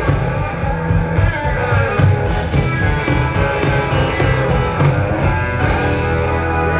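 A rock band playing live, with electric guitar to the fore.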